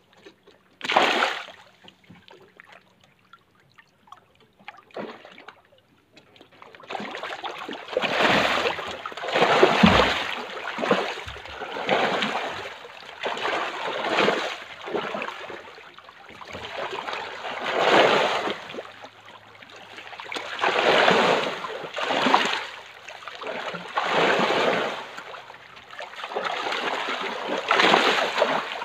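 Farmed fish splashing and churning at the water's surface. There is one splash about a second in, then a few quiet seconds, then from about seven seconds on a run of loud splashing surges, roughly one every second or two.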